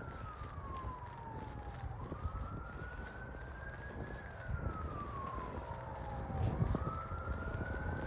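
An emergency vehicle siren wailing, its pitch slowly rising and falling about every four seconds, over a low steady rumble.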